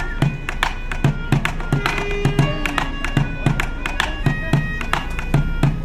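A plastic bucket played as a drum with drumsticks, beating out a quick, steady rhythm of about three strikes a second. Over it comes a reedy melody of short held notes from a small wind instrument.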